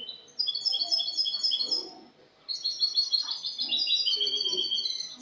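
European goldfinch (Spanish jilguero) singing two fast phrases of rapid, repeated high twittering notes, the second longer than the first.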